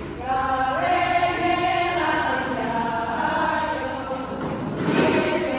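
A group of voices singing together in held notes, the tune changing about every two seconds, with a short burst of noise near the end.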